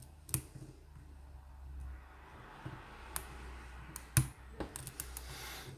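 Lockpick and tension wrench working the pins of a lock: scattered small metallic clicks, the loudest about four seconds in, followed by a quick run of clicks near the end.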